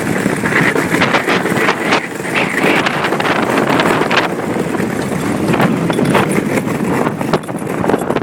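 Ice boat running over lake ice: a steady rushing noise with many quick clicks and rattles, and wind buffeting the microphone.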